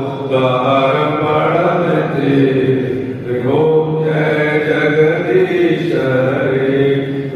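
A man chanting mantras in a melodic recitation into a microphone. His voice is held on long notes and glides between them, with a short break about three seconds in.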